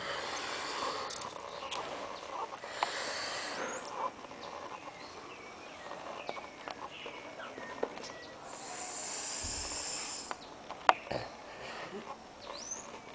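A pet pig snoring loudly in its sleep, slow hissing breaths with a long one about nine seconds in. A sharp click sounds about eleven seconds in.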